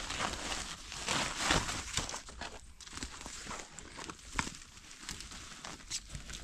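Rustling and crackling of a cloth bag being handled and of dry bamboo leaf litter and twigs being stepped through, loudest in the first two seconds, with one sharper crack about four and a half seconds in.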